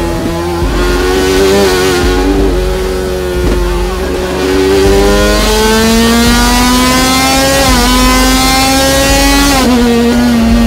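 KTM RC16 MotoGP 'screamer' V4 engine revving hard, its pitch climbing in stretches with brief dips between, then dropping sharply near the end.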